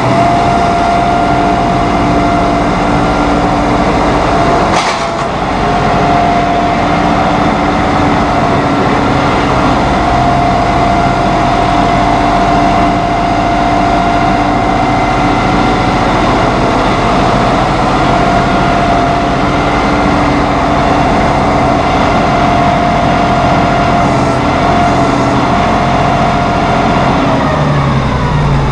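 John Deere 5045E utility tractor's 2.9-litre three-cylinder diesel engine running steadily as the tractor drives, with a short click about five seconds in. Near the end its pitch falls as the engine slows down.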